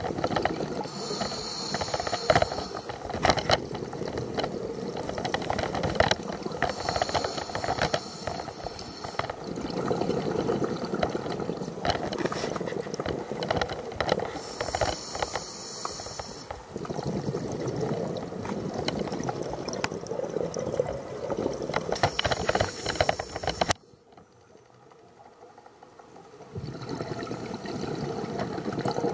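Scuba diver breathing through a regulator underwater: a hissing inhale about every 6 to 7 seconds, four times, with bubbling exhales between them. Near the end the breathing sounds stop for about three seconds, then the bubbling comes back.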